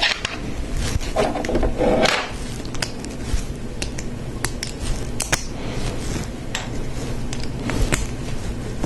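Plastic Lego Technic parts clicking and rattling as they are handled and pressed together, with irregular sharp clicks and a brief rustle of pieces about a second in.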